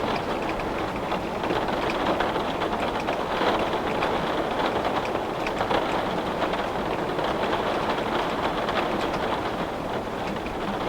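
Steady rain pattering against a glass window pane, many small drop ticks over a constant wash.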